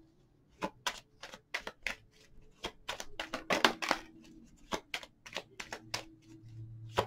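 Tarot cards being shuffled by hand: a string of irregular snaps and taps as the cards riffle and slide, with a few louder bursts as cards spill from the deck onto the table. A faint low hum comes in near the end.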